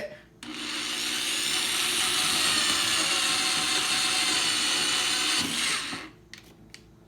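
Electric drill with a bit running steadily for about five seconds, boring a hole for a nail, then stopping.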